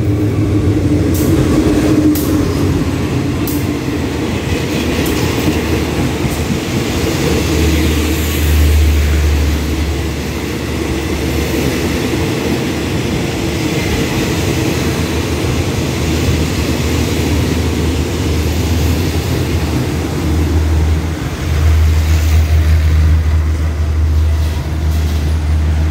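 Diesel-electric locomotive GEA 4525 and its passenger coaches rolling slowly into the station, pulling in to stop. The locomotive's engine runs as it comes past, with sharp clicks from the wheels in the first few seconds. As the coaches roll by there is steady rolling noise under a deep hum that grows louder about eight seconds in and again near the end.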